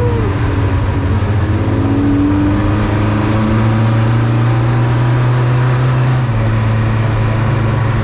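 Honda H22A four-cylinder engine of a Mini race car running loudly at steady revs, dropping slightly in pitch about six seconds in.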